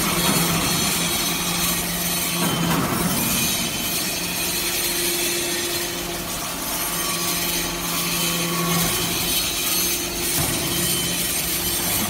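Hydraulic briquetting press for metal chips running: a steady hum from its hydraulic pump and motor under a dense, even mechanical noise.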